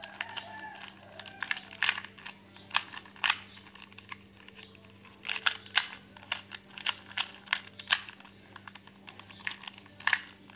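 A plastic 2×2 Rubik's cube being turned quickly by hand during a solve: irregular clicking and clacking of the layers, in quick runs with short pauses.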